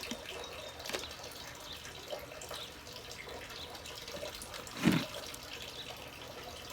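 Potting soil and succulents being handled: faint rustling and crumbling of soil with small scattered clicks, and a louder scrape about five seconds in, over a steady faint hiss.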